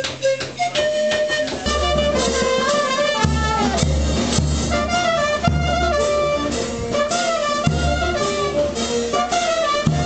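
Brass band playing a tune over deep bass notes. It comes in about two seconds in, after a few quick, sharply struck notes from another instrument.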